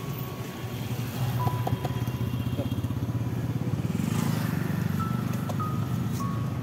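A motor vehicle's engine running steadily with a rapid low throb, getting a little louder about four seconds in.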